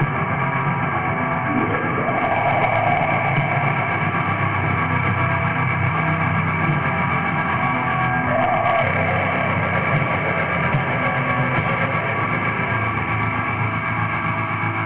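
Raw lo-fi black metal: distorted electric guitar and bass in a dense, steady wall of sound with little treble. A higher note slides up and holds about two seconds in, and again near eight seconds.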